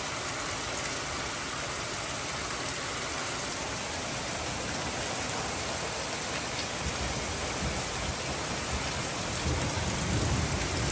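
Heavy rain pouring down in a steady hiss. Low thunder starts to rumble several seconds in and builds toward the end.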